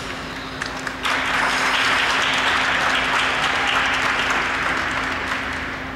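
Audience applauding, starting suddenly about a second in and slowly tapering off near the end.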